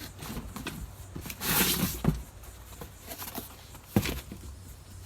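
Pressure washer parts and packaging being handled: scattered light clicks and rustling, a longer rustle about a second and a half in, and sharp knocks at about two and four seconds.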